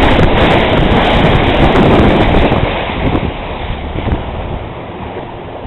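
Wind buffeting the microphone and water rushing past a fast-moving inflatable boat; the noise drops off about halfway through as the boat eases off.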